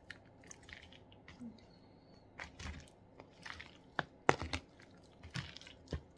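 Hands tossing spice-coated raw chicken pieces in a thin plastic tray: a few irregular wet squishes and crackles of the plastic.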